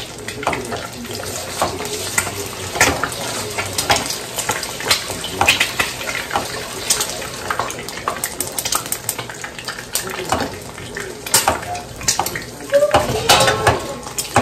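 Metal spoon stirring in a small steel pot on a gas stove, clinking and scraping against the sides again and again.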